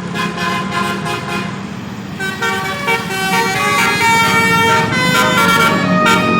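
Bus's multi-tone 'basuri' telolet horn playing a melody: short clipped notes for about two seconds, then longer, louder held notes.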